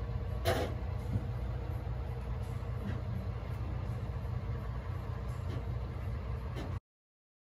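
Fishing boat's engine idling with a steady low rumble, with a light knock about half a second in; the sound cuts off suddenly near the end.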